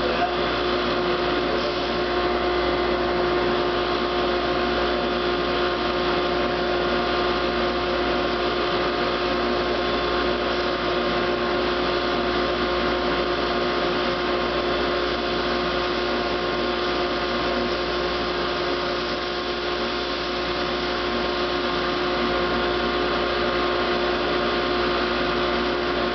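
Woodmaster planer-molder running as a drum sander together with its dust collector: a steady machine hum and rush of air with no change in speed.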